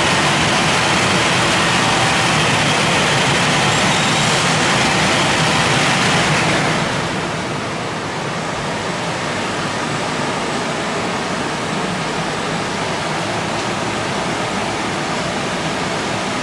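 The dryer blowers of a WashTec SoftWash gantry car wash running with a loud, steady rush of air in the drying stage. About six and a half seconds in, the hiss drops off sharply and settles to a lower steady running noise.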